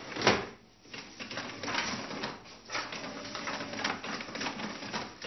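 HP all-in-one inkjet printer: its lid is shut with a knock, then about a second later the print carriage and paper feed start running in an irregular clatter of clicks and whirring as it prints a page of colour squares.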